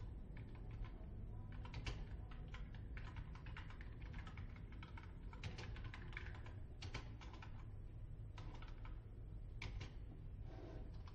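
Typing on a computer keyboard: irregular runs of quick key clicks with short pauses, over a steady low hum.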